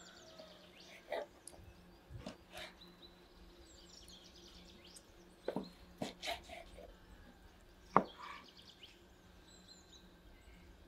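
Large kitchen knife slicing boiled beef tongue and knocking on a wooden cutting board, several irregular taps with the loudest about eight seconds in. Small birds chirp faintly in the background.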